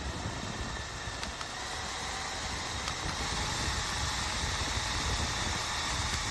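Handheld battery turbo fan running, a steady rush of air with a motor whine, growing louder as it is stepped up through its speed settings.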